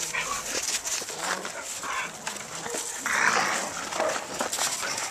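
Two dogs tussling over a rubber dumbbell chew toy: scuffling paws on snow and small knocks, with a louder rasping noise about three seconds in.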